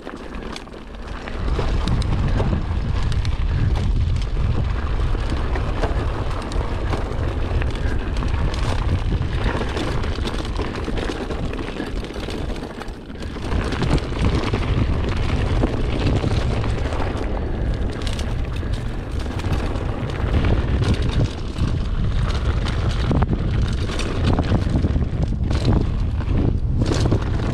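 Mountain bike riding fast down a dirt trail: heavy wind rumble on the microphone over tyre noise on dirt and stones, with frequent knocks and rattles from the bike. The noise picks up sharply about a second and a half in and stays loud.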